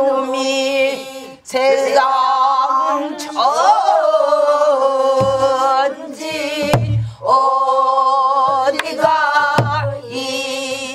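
Pansori singing: voices draw out long, melismatic held notes with a wide wavering vibrato. A few deep strokes on the buk barrel drum mark the rhythm.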